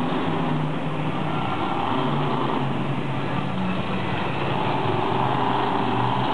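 Monster truck engine running at a fairly steady, moderate pace as the truck drives across the arena floor, its note rising and falling only slightly.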